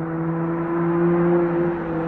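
Dodge Charger SXT's V6 running through a Flowmaster Outlaw exhaust, a steady deep drone with its revs climbing slowly, so the pitch and level creep up.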